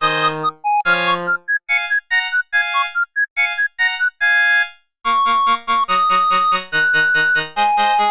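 Samsung SGH-T100 polyphonic ringtones played back as MIDI through a software synthesiser: a keyboard-like tune of short notes that stops about five seconds in. Another ringtone starts at once, with a bass line under its melody.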